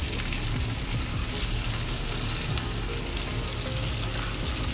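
Chicken drumsticks frying in a pan of mustard-oil spice marinade: a steady, dense sizzle with fine crackles of spitting oil.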